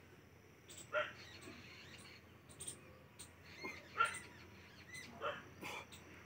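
Birds chirping: about five short, separate calls scattered over a few seconds, heard faintly.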